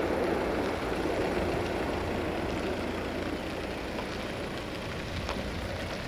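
Rumble of a diesel-hauled passenger train running along the track, slowly fading as it moves away.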